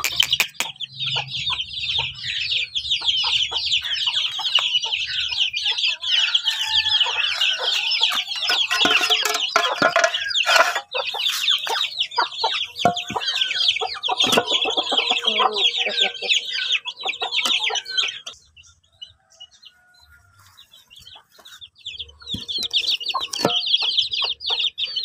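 A brood of village chicks (ayam kampung) peeping densely and without pause, with lower clucking mixed in through the middle. The peeping stops for a few seconds near the end, then starts again.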